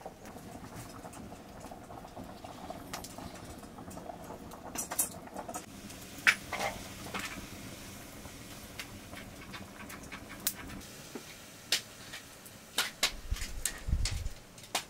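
Water bubbling at a boil in a metal pot over an open wood fire, with the firewood crackling in scattered sharp clicks and pops. A few louder knocks and a low thump come near the end.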